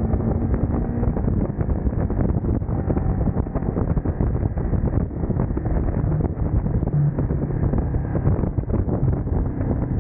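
Wind buffeting the camera microphone at riding speed, with the Ducati Monster's 937 cc L-twin engine running faintly underneath.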